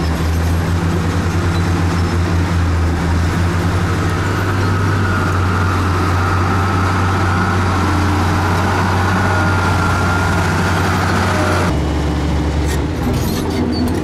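Diesel engines of heavy road-construction machinery running steadily, with a low engine note that shifts about four seconds in and a thin whine through the middle. The sound changes abruptly near the end.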